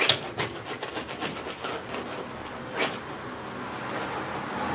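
Palette knife scraping across oil paint on a canvas: a short scrape at the start and another a little under three seconds in, with faint scratching between.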